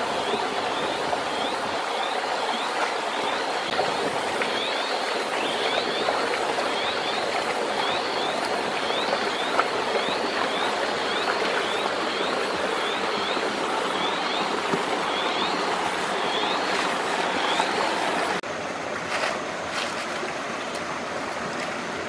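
Water flowing in a shallow rocky stream, a steady rushing with a high, short rising chirp repeating about once a second. Near the end the rushing suddenly drops quieter and a few light knocks come through.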